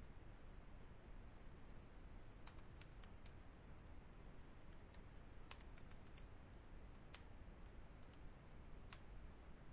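Faint, scattered keystrokes on a computer keyboard: about a dozen sharp taps, some in quick little runs, over a low steady background noise.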